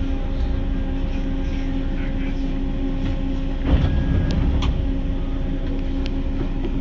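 Detroit People Mover car (UTDC ICTS Mark I automated train) running on its elevated track, heard from inside: a steady rumble with a steady hum. A louder bump comes about halfway, followed by a couple of sharp clicks.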